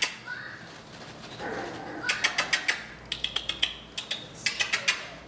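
Quick runs of lip-smacking kiss sounds, about ten a second, made by a person calling a puppy. They come in three short bursts of about half a second each, the first about two seconds in.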